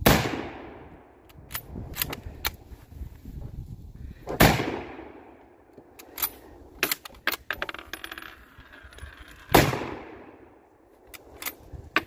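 Three loud, sharp bangs about four to five seconds apart, each dying away over a second or so, with lighter clicks and knocks in between.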